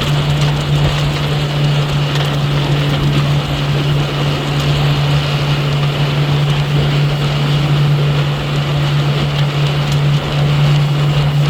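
Motorboat engine running at a steady speed, a constant low drone over the rush of water and wind.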